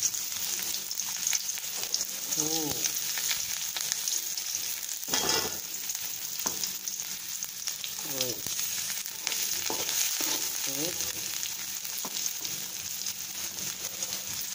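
Chopped onion sizzling in hot oil in a steel wok, with a steady sizzle and the scrape and knock of a metal spatula stirring it now and then.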